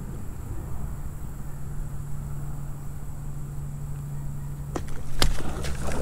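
Steady low outdoor background noise, then near the end a quick cluster of knocks and rattles: handling noise as a fishing rod is swept back from a kayak, a hook set on a strike.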